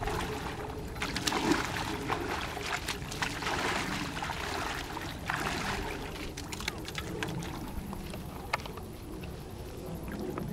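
Shallow water splashing and sloshing as people wade in and push a small catamaran's hulls through it, with many short splashes over a steady wash of water noise.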